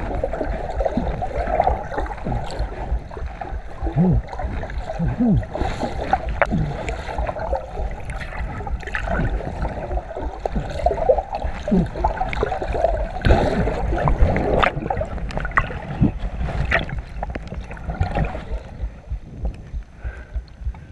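Muffled sloshing and gurgling of water close to the microphone, with scattered knocks, as someone wades or swims through water; it eases off near the end.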